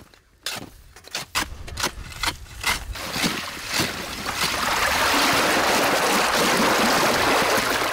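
Sharp knocks of a pole striking ice, two or three a second, then from about three seconds in a steady rush of water churning and splashing in a hole cut through the ice.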